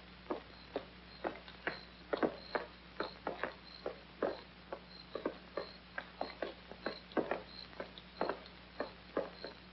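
Footsteps tapping on a pavement at an uneven pace, two or three a second, with crickets chirping about twice a second behind them.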